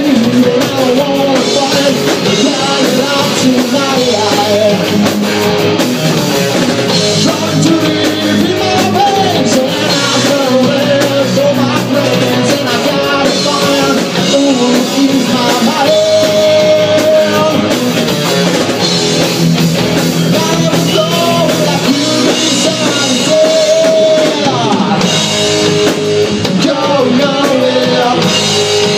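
Live rock band playing: electric guitar, bass guitar and drum kit, with a man singing into the microphone over them.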